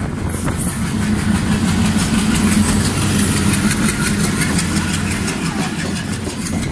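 Alco diesel locomotive's engine working hard under load as it accelerates a passenger train, a deep steady throb that grows louder over the first few seconds.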